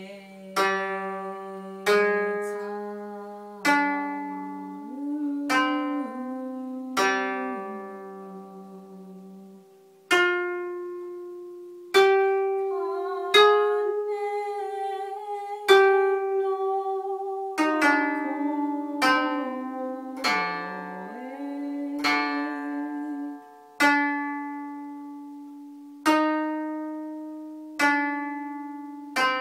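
Koto, the Japanese thirteen-string zither, played slowly: one plucked note or a pair of notes every second or two, each ringing out and dying away. A few notes are bent up or down in pitch by pressing the string beside its bridge.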